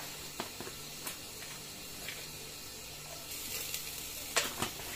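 Tomato-cream pasta sauce simmering with a soft, steady sizzle in a frying pan over a gas burner. A few light plastic clicks come from the shaker cap being opened, and two sharper ones sound near the end.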